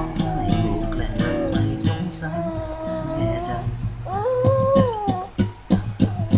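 Acoustic guitar being fingerpicked in repeated low notes, with a baby's bare foot pressing against the strings. Two long, high, gliding hums sound over it, about two and four seconds in.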